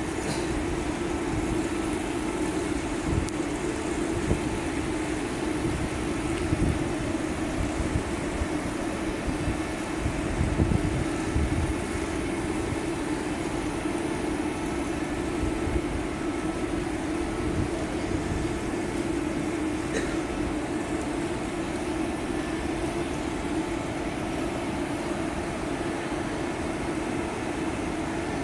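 Steady background hum with an uneven low rumble underneath, slightly stronger around ten seconds in.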